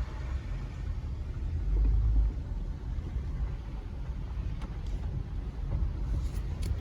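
Low, steady rumble of the 2020 Jeep Gladiator Rubicon's 3.6 Pentastar V6 and drivetrain, heard from inside the cab, swelling briefly about two seconds in, with a few faint clicks.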